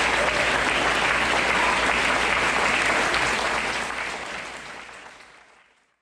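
Audience applauding steadily, then fading out over the last two seconds or so.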